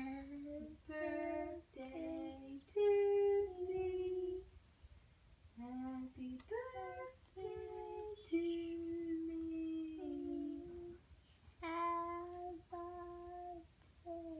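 A child humming a wordless tune in a series of held, steady notes with short breaks between them.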